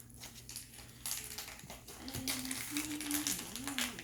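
Plastic toy packaging crinkling and rustling in quick, irregular strokes as blind bags are opened and handled. A faint wavering hum sounds in the second half.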